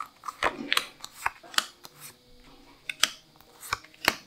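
Tarot cards and a cloth mat being handled, a scattered series of sharp clicks and taps.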